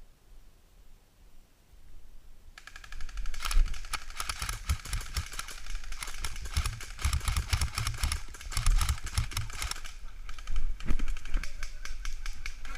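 Airsoft guns firing in rapid bursts, a fast clatter of shots that starts about two and a half seconds in and goes on in runs with short pauses.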